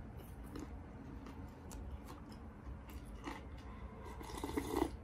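Someone eating instant cup udon: faint chewing and small clicks, then a louder slurp of broth from the lifted cup about four seconds in, lasting under a second.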